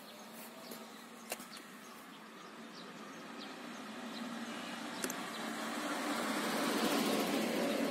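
A motor vehicle passing: a rushing noise swells over several seconds, peaks near the end and begins to ease. A small click about five seconds in comes as the rubber cap of the scooter's charging socket is flipped open.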